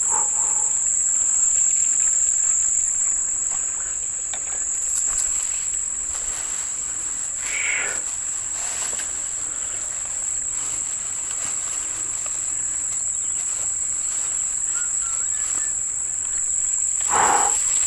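Insects shrilling in one steady, high, unbroken tone, with two brief louder sounds cutting in, one about halfway through and one near the end.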